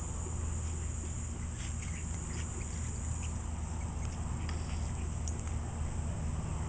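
Puppies rooting through dry leaf litter and twigs, making faint scattered crackles and rustles over a steady low hum.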